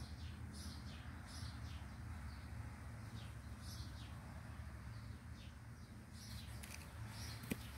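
Faint outdoor background: birds chirping now and then over a low steady hum, with one sharp click near the end.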